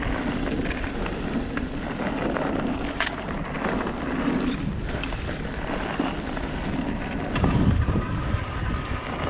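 Yeti 160e electric mountain bike riding fast down a dirt and gravel trail: tyres rolling over the surface and wind rushing on the microphone, with a sharp knock about three seconds in.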